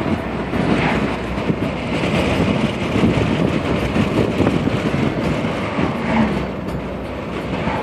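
Road and engine noise inside a moving vehicle, a steady rumble with some rattling from the cabin.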